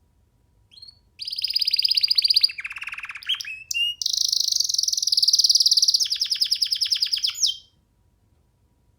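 Young domestic canary singing one long phrase of rapid trills, starting about a second in. The trills switch between higher and lower pitches several times, ending in a slower pulsed trill.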